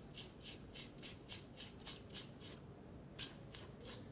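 Spatula scraping creamed butter and sugar down the sides of a stainless steel stand-mixer bowl, in quick strokes about three a second, with a short pause near the end.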